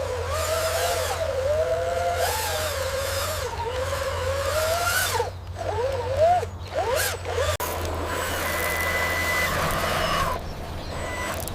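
Small electric motor whining, its pitch rising and falling as its speed changes for the first several seconds, then running more steadily.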